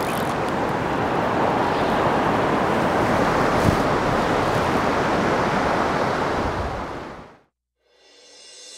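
Steady rush of flowing river water, fading out about seven seconds in; after a moment of silence a quieter sound starts to build near the end.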